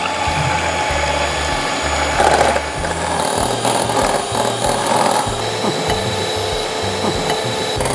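Electric hand mixer running steadily, its beaters whisking egg whites and vanilla in a glass bowl, beating them toward stiff peaks.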